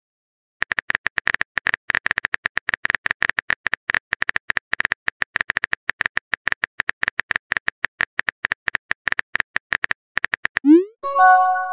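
Phone keyboard typing sound effect: rapid, irregular key taps, several a second, for about ten seconds. Near the end comes a quick rising pop and a chime, a message-arrival alert.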